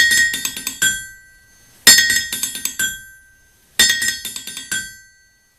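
Three quick runs of bright, ringing glassy clinks, like small bells or glass chimes struck in rapid succession, each run fading out, about two seconds apart.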